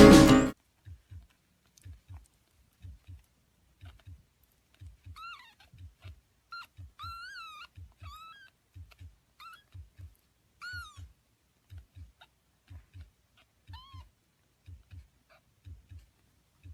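A cat meowing: about eight short, high meows, each rising then falling, over a soft low pulse that repeats about once a second.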